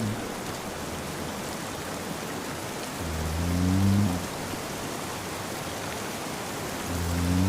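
Steady rain with a man snoring over it: a low snore about every four seconds, each lasting about a second, with one in the middle and another starting near the end.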